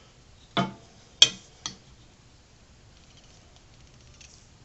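Three short knocks and clinks in quick succession, the middle one the sharpest, from a marking tool and the wooden blank being handled and set down on a workbench.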